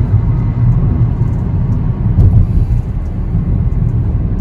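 Steady low rumble of road and engine noise heard inside a car's cabin while driving on a highway.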